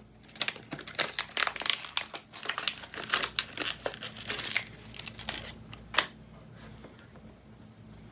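Packaging being handled, crinkling in a dense run of irregular rustles for about five seconds, ending with one sharp click about six seconds in.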